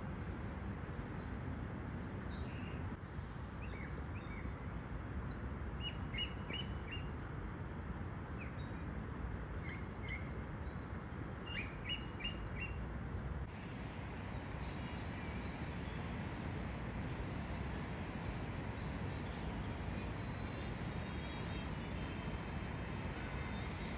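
Outdoor ambience of a steady low background rumble, with small birds giving short runs of quick high chirps several times.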